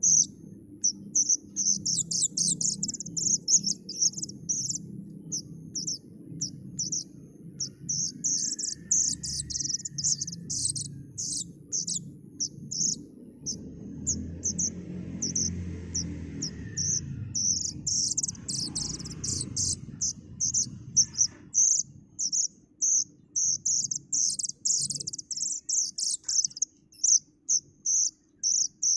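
Young kedasih (plaintive cuckoo) giving short, high-pitched begging chirps in rapid runs of several a second, with brief pauses between runs. A steady low rumble sits underneath.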